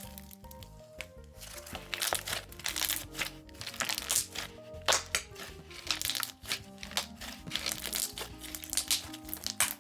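Slime being pressed and stretched by hand, giving dense crackling and popping clicks that grow busier about two seconds in, over background music.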